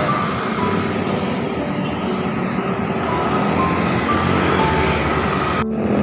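Road traffic going by: a steady rush of passing cars and motorcycles, with a few short high tones scattered through. The sound drops out abruptly for a moment near the end.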